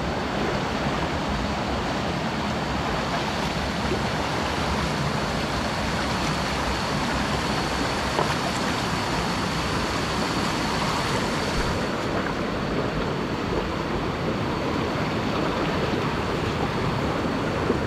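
Stream water rushing steadily, an even wash of noise with no breaks.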